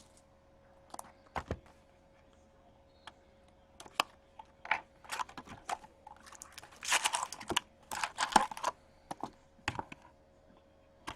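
Hands opening a box of hockey cards and its packaging: scattered clicks and taps, with a louder run of rustling and crackling about seven to eight and a half seconds in.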